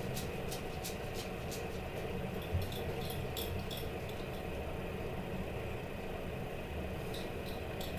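Fidget spinner whirring steadily on its bearing, a constant hum with faint light clicks over it.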